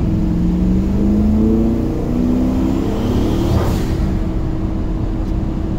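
The S10's turbocharged big-cam engine accelerating, heard from inside the cab, its note climbing as the revs rise. About three and a half seconds in, a short hiss cuts in as the climb ends.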